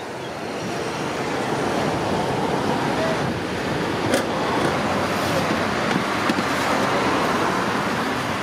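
Steady road traffic noise from passing vehicles, building slightly over the first second, with a sharp click about four seconds in.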